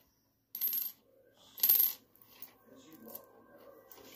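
Loose coins clinking and jingling on a wooden tabletop as a capuchin monkey paws through them: two short jingles about half a second and a second and a half in, then quieter sliding and rattling of coins.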